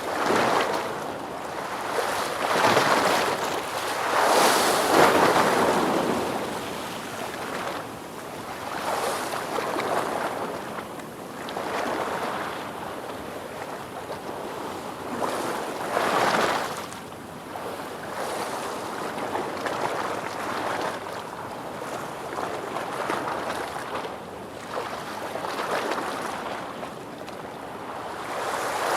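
Ocean waves washing on a shore: a continuous rush of surf that swells and fades, with the loudest surge about four to five seconds in and another sharp one about sixteen seconds in.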